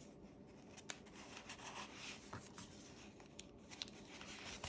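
Faint rustle of paper pages being handled, with a few small clicks as a metal paper clip is slid onto the folded pages.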